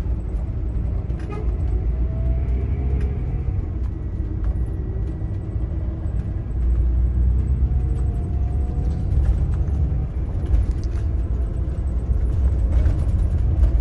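Scania K410 coach's diesel engine and road noise as a steady low rumble, heard from inside the passenger cabin while driving, with the engine note rising slightly twice.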